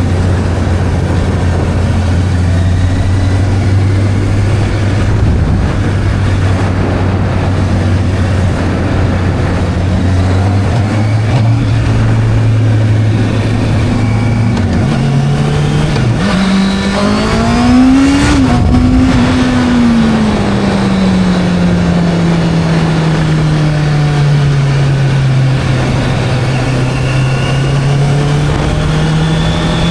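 Motorcycle engine under way, holding a steady note at first. About halfway through it revs up quickly, peaks, then slowly winds down as the throttle eases, and starts to pick up again near the end. A steady rush of wind noise sits under it throughout.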